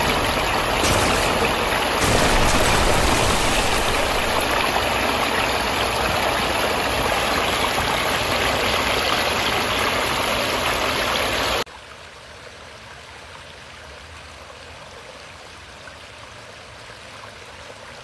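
Water from a small pondless waterfall spilling over stone ledges and down a short rocky stream: a steady, loud rush of splashing water. About two-thirds of the way through it cuts off suddenly to a much quieter, steady water sound.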